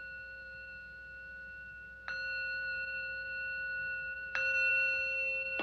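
Buddhist temple bowl bell struck twice, about two seconds apart, the second strike louder. Each strike rings on in a long, steady, many-toned hum over the ringing of the one before.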